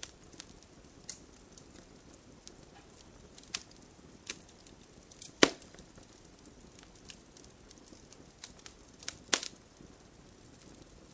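Wood fire crackling: irregular sharp snaps and pops, two louder pops about halfway through and near the end, over a soft steady hiss of rain.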